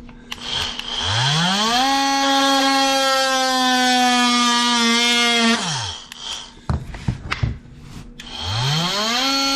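Ryobi One+ 18-volt oscillating multi-tool cutting wood molding. Its motor spins up with a rising whine, runs steady for about four seconds and winds down. After a few knocks it spins up again near the end.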